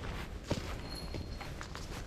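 Irregular knocks and taps like footsteps, the loudest about half a second in, with a brief faint high tone near the middle.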